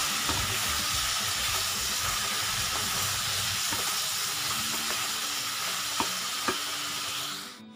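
Vegetables and soaked soya chunks frying in hot mustard oil in a kadhai, a steady sizzle, while a spatula stirs them, with a couple of sharp taps of the spatula on the pan about six seconds in. The sizzle drops away briefly near the end.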